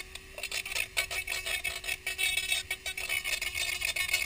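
Handheld rotary tool running with a steady whine while its bit grinds and sands the inside of a helmet, giving a fast, irregular scraping as the bit bites into the material.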